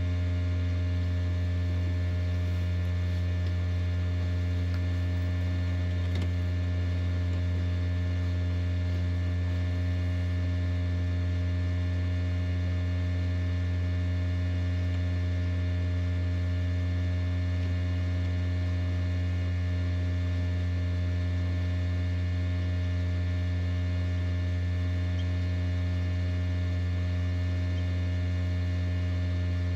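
Incubator's electric fan motor running with a steady low hum and a stack of constant tones above it, unchanging throughout.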